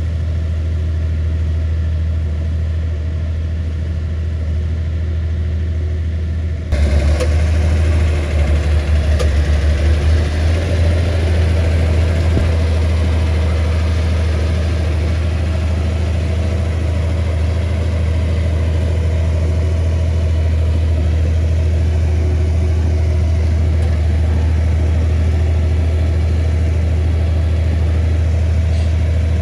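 Komatsu bulldozer's diesel engine running steadily. About seven seconds in, the sound jumps suddenly louder and brighter and wavers for a few seconds before settling steady again.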